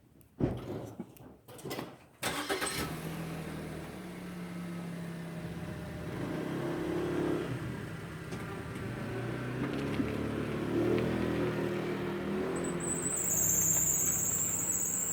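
A few clicks, then a patrol car's engine starts about two seconds in and runs with a steady low hum. Near the end a high-pitched squeal begins and wavers downward: the strange noise the car made as it left.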